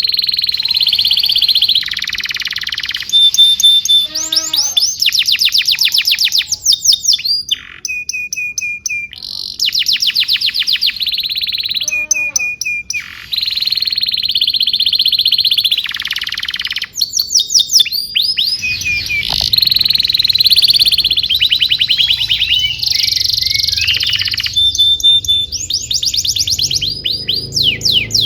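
Domestic canary singing a long, lively song: phrase after phrase of fast rolling trills, rapid runs of sweeping notes and short clear whistles, with brief pauses between phrases.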